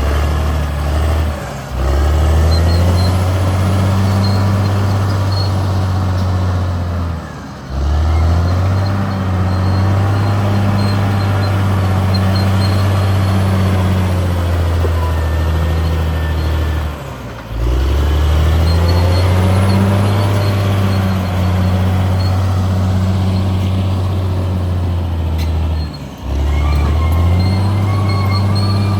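CAT D6R XL bulldozer's diesel engine running steadily under load. Its note sags briefly four times, then picks back up.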